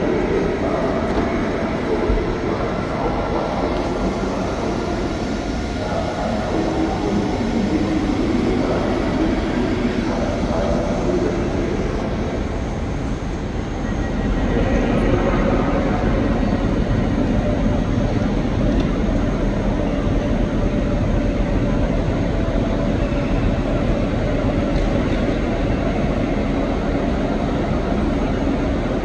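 Railway station hall ambience: the steady rumble and hum of trains at the platforms, growing somewhat louder about halfway through.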